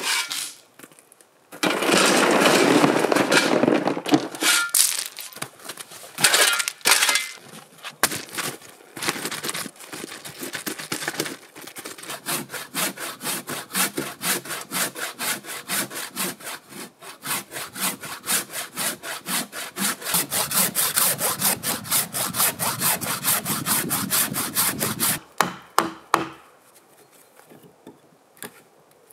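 Hand saw cutting through a log, first in short broken runs, then in a long spell of rapid, even back-and-forth strokes that stops abruptly near the end.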